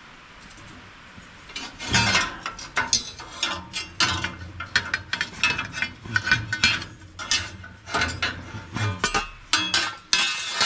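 Hand ratchet wrench clicking in quick, irregular runs as a bolt is worked loose, starting about a second and a half in.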